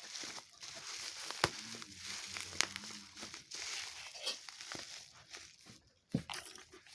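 Plastic packaging crinkling and rustling as a parcel is unwrapped, with a few sharp clicks and snaps.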